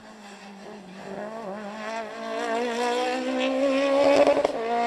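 Rally car at full speed approaching and passing. The engine's pitch rises and falls and it grows steadily louder, peaking with a few sharp crackles as the car goes by about four seconds in.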